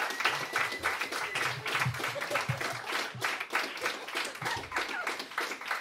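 Small club audience clapping and applauding at the end of a live song, with a held whistle near the start.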